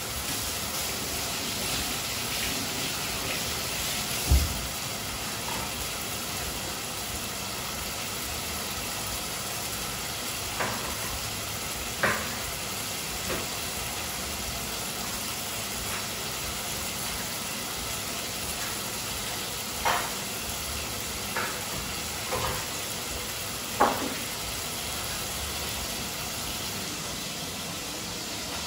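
Pan of black-eyed beans sizzling steadily on the stove, with a few sharp knocks over it, the loudest a low thump about four seconds in.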